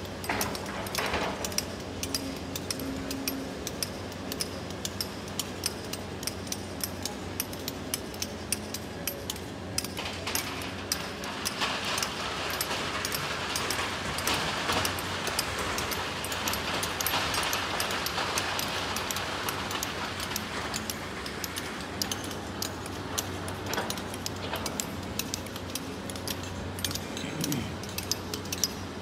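Hydraulic excavators and dump trucks with their diesel engines running in a steady low hum, under a constant clatter and clinking of rocks and gravel. Through the middle a louder rush comes from material being tipped from a bucket into a truck bed.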